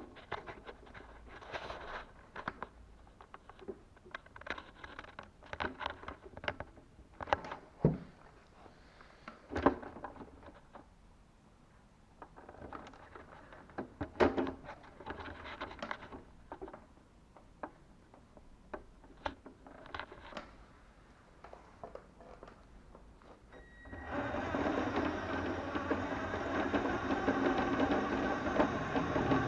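Irregular clicks and knocks, then near the end a radio-controlled toy Mini Cooper S's electric motor and drivetrain start up and run steadily.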